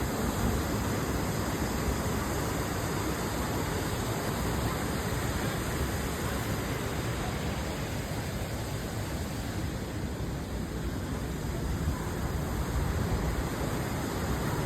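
Steady rush of a waterfall, an even wash of falling water with no pauses.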